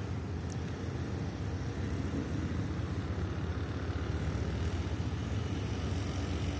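Steady low rumble of a diesel locomotive engine running, under an even hiss, growing slightly louder.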